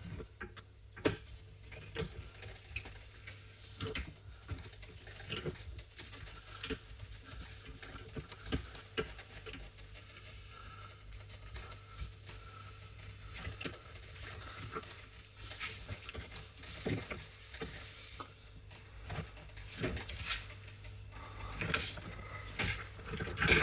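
Hand tools clicking and tapping against a metal brake caliper at irregular intervals, with a busier run of louder metal clicks near the end as a spanner is worked on it.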